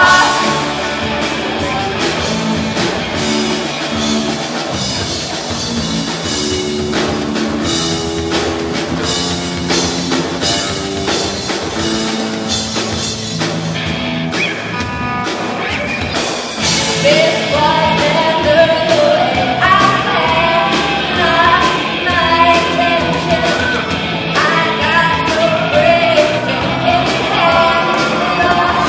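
A live rock band playing, with electric guitars and a drum kit. For the first half the guitars carry an instrumental stretch; a little past halfway a female singer comes in over the band.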